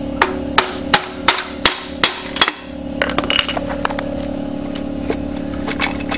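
Seven sharp metal knocks, about three a second, as the sump cover of a 12 hp Briggs & Stratton Industrial Commercial engine is tapped to break it loose, followed by lighter clinks of metal as the cover is worked off. A steady low hum runs underneath.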